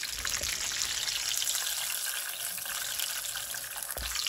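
Hot oil sizzling and crackling steadily as chicken rolls deep-fry in a pan. Soft low knocks just after the start and about four seconds in, as steel tongs lift rolls out.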